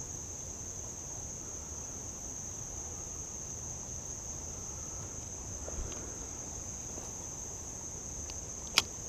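Insects trilling steadily in one even, high-pitched band, over a faint low rumble. A single sharp click sounds near the end.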